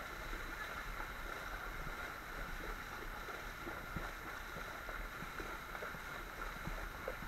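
Steady rush of shallow river water with small scattered splashes, as horses wade through the river.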